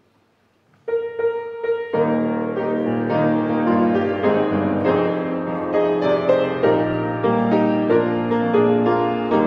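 Piano playing the introduction to a hymn: a single held note about a second in, then full chords from about two seconds in.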